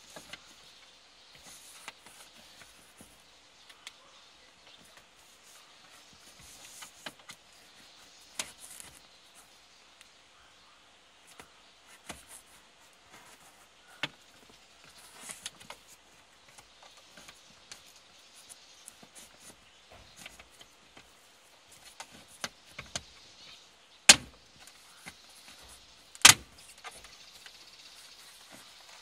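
Plastic interior trim being pried: scattered clicks, creaks and scrapes as a plastic pry tool works the dome light panel of a 2017 Toyota Innova loose from its clips, with two loud sharp snaps near the end as clips let go.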